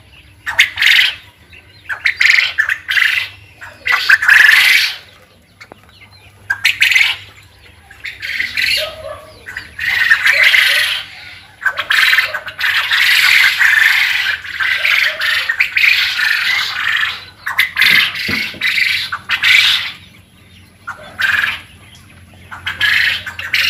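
A flock of young quail calling in a pen: harsh chirps and squawks that come in repeated bursts, running together into a longer stretch of continuous calling midway.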